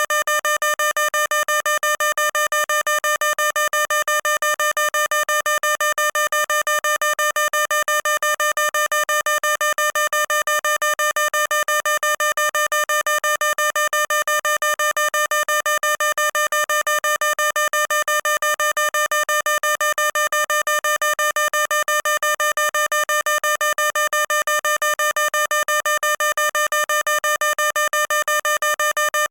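Fire alarm sounding: one harsh electronic tone beeping rapidly and evenly, several times a second, at constant loudness without a break.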